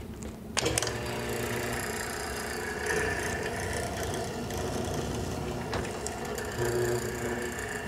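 Benchtop hollow chisel mortiser running, with a 1/4-inch hollow chisel and bit plunged into hardwood to cut a mortise. The motor starts about half a second in and then runs steadily, with the cutting and chip-clearing noise on top.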